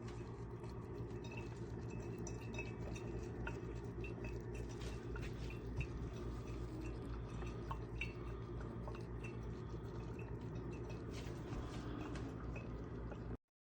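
OXO Brew 8-cup drip coffee maker brewing: water dripping and trickling, with scattered small ticks over a steady low hum. The sound cuts off abruptly near the end.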